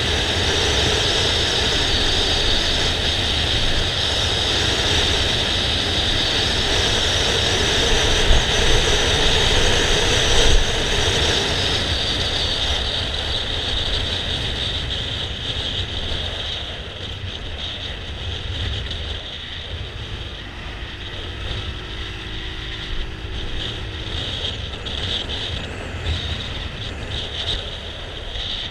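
A motor scooter riding along, its engine and tyre noise mixed with steady wind rush and rumble on a GoPro camera's microphone. It is louder for the first dozen seconds, then quieter.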